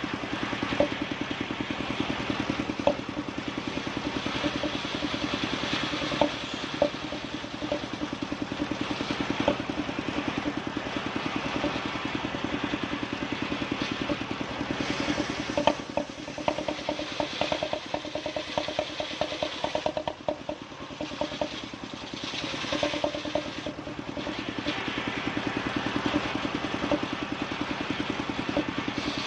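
Engine of a wood-sawing machine running steadily, with scattered sharp knocks and, about halfway through, a few seconds of quick rattling ticks.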